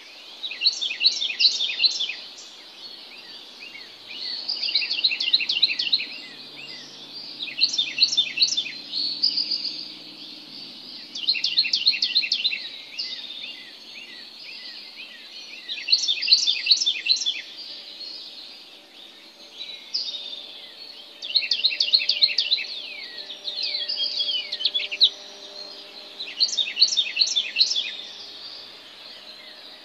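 A songbird singing in the dark before dawn, repeating phrases of rapid, high chirping notes, each phrase about two seconds long and coming every three to four seconds. A faint steady hum sits underneath.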